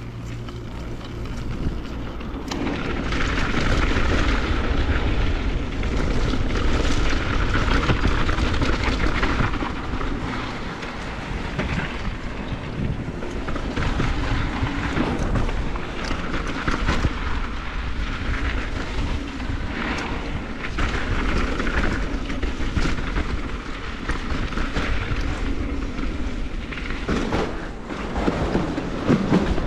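Downhill mountain bike running fast down a dirt trail: wind rushing over the camera microphone and knobby tyres rolling over dirt and gravel, with frequent rattles and knocks from bumps. Near the end the wheels run onto a wooden boardwalk.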